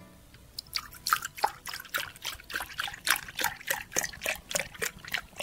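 Milk poured in a thin stream into a plastic measuring cup, splashing and glugging in a quick uneven run of about four to five splashes a second as the cup fills and froths.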